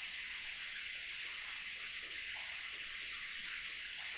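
Steady background hiss, the recording's room and microphone noise, with no other distinct sound.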